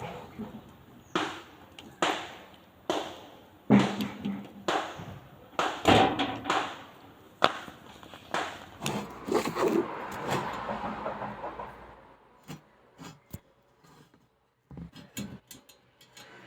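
A run of sharp knocks and clatters, one or two a second, thinning to a few faint clicks over the last few seconds.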